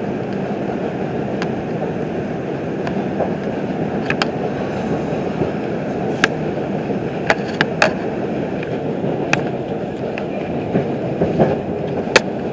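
R142 subway car running along elevated track, heard from inside the car: a steady rumble of wheels on rail, with sharp, irregularly spaced clicks and clacks over it.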